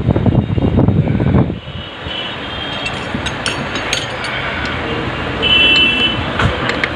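Clattering and sharp metal clicks from sewing-machine parts being handled and fitted, mostly in the first second and a half, then scattered clicks over a steady background rumble like street traffic. Two brief high-pitched tones sound near the middle.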